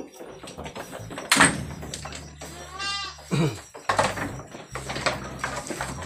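Anglo-Nubian goat giving one short, wavering bleat about halfway through. Around it are a few sharp knocks, the loudest about a second and a half in.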